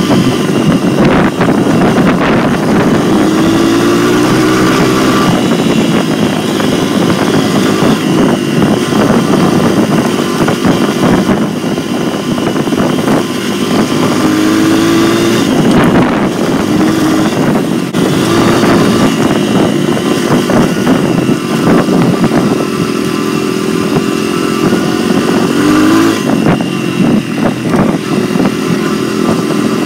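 Dirt bike engine running loud under the rider, its pitch climbing several times as it is throttled up and eased off.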